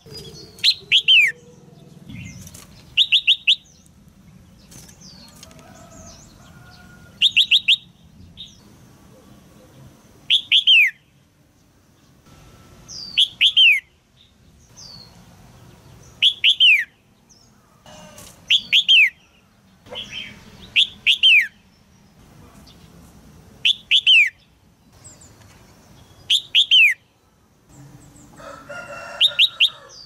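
Female red-whiskered bulbul calling: short chirping calls, each made of two or three quick notes that sweep downward, repeated about every two to three seconds. A rougher, fuller call comes near the end. These are calls used to prompt a young male to sing.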